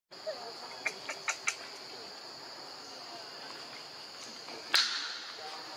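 Steady high-pitched drone of insects. About a second in come four quick short clicks, and near the end one louder sudden burst with a short tail.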